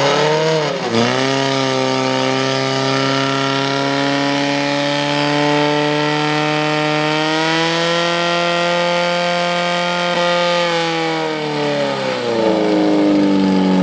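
Portable fire pump's engine running flat out while it drives water through the hoses to two jets, a steady high-revving tone that dips briefly about a second in and drops in pitch near the end.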